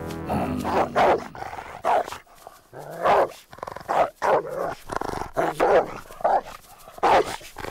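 A cartoon guard dog barking over and over, in short separate barks about once or twice a second.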